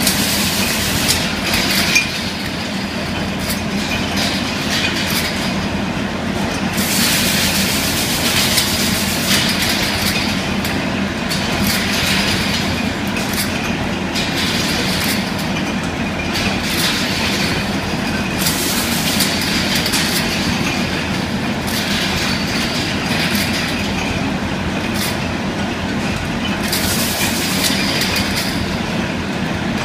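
EFG-18/18/6 rotary glass-bottle rinsing, filling and capping machine running: a steady clatter of glass bottles moving through its star wheels over a low hum, with louder, hissier surges every few seconds.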